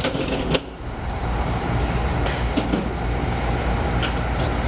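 Steady low rumble of workshop background noise, with a brief clatter of small clicks and rattles in the first half second and a few faint ticks later, as of tools and small parts being handled on a table.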